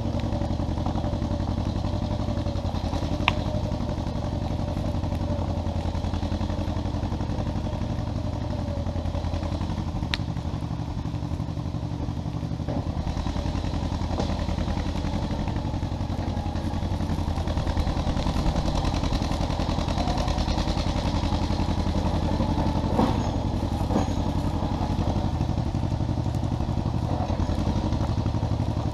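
1957 John Deere 420 crawler bulldozer's two-cylinder gas engine running steadily while the machine works dirt, with a couple of sharp clicks.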